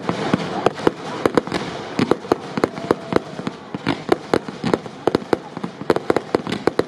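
Fireworks display: a rapid, irregular series of sharp bangs from aerial shells bursting, several a second, over a steady hiss.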